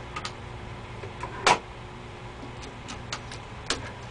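About ten scattered clicks and taps, one louder about a second and a half in, over a low steady electrical hum.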